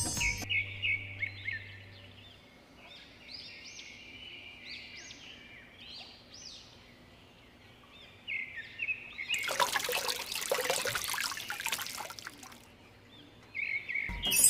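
Birds chirping in short, repeated calls. About eight seconds in, water pours and trickles for roughly four seconds.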